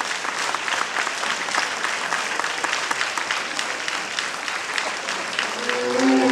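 Audience applauding, a dense patter of many hands clapping. Recorded tango orchestra music starts to come in near the end.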